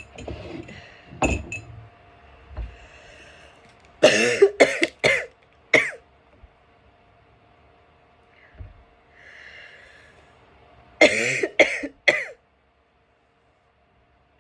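A person coughing after inhaling chhinkni, a sneezing snuff powder. A single cough about a second in, then a fit of four or five harsh coughs, quieter breathing, and a second fit of three or four coughs. The sound cuts off right after the last fit.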